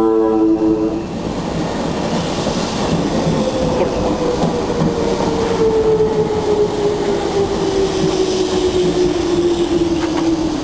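Meitetsu 7000 series Panorama Car rolling past along the platform: rumbling wheel and running noise, with a single whine that falls slowly and steadily in pitch. A chord of held tones ends about a second in.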